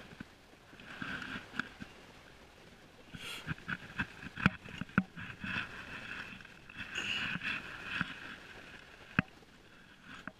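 Shoes and hands scuffing and knocking on concrete riprap as someone climbs over the rocks, with several sharp knocks. The loudest knock comes near the end.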